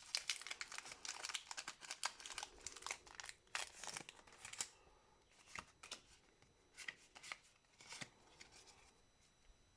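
Crinkling and small clicks of trading cards and their packaging being handled. The sounds come thick for the first four seconds or so, then thin out to occasional ticks.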